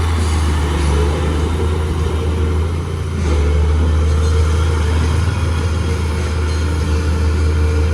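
Mitsubishi bulldozer's diesel engine running under load as a steady low rumble, easing briefly about three seconds in and then picking up again.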